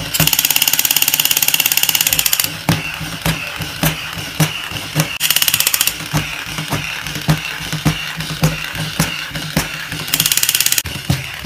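Battery-operated Captain America crawling toy soldier: its plastic limbs click and knock as its motor drives the crawl, and its speaker plays a rapid electronic machine-gun rattle in three bursts, a long one at the start, another about five seconds in and a short one near the end.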